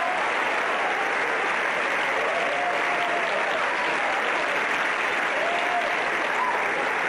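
Audience applauding steadily, with a few brief cheers heard over it.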